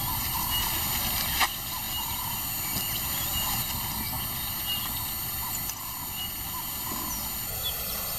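Outdoor bush ambience: a steady noisy background with faint, short high chirps about once a second and a single sharp click about a second and a half in.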